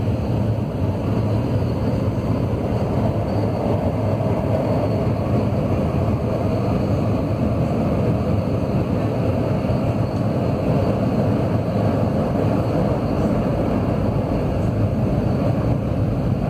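CAF AS-2014 steel-wheeled metro train running at speed through a tunnel, heard from inside the front car: steady running noise of wheels on rail, with no change in pace.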